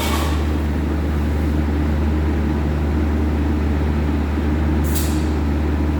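A steady low mechanical hum, unchanging in level, with a brief hiss a little before the end.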